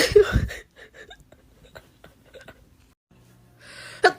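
A person with COVID sneezing: a sharp sneeze right at the start, then quiet breathing, then a rising, noisy intake of breath near the end as the next sneeze builds and breaks.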